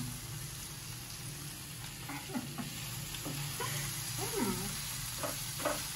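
Beef curry pieces with tomato and onion sizzling in a hot frying pan, stirred with a wooden spatula.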